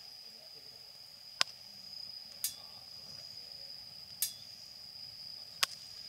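Wood fire crackling: four sharp pops about a second or so apart, over a steady high-pitched tone.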